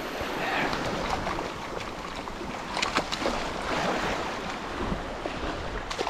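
Small waves lapping on a pebbly shoreline, with water splashing as a fish is unhooked in the shallows and released, and a few sharp clicks about three seconds in. Wind on the microphone.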